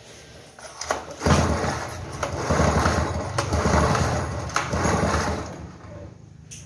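Stihl 070 chainsaw's two-stroke engine catching about a second in and running unevenly for about four seconds, then dying away.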